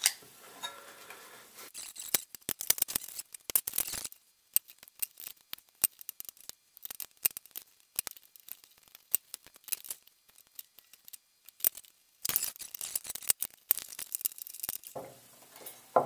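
Scattered small clicks and taps of wiring parts and hand tools being handled on a wooden workbench: an electrical cord, a metal switch box and its parts. The handling noise gets busier for a few seconds about twelve seconds in.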